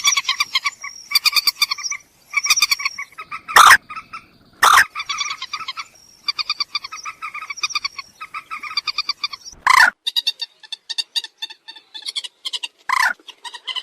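Recorded moorhen calls: fast runs of short, clipped notes repeated several times a second, with a few louder, harsh notes cutting in.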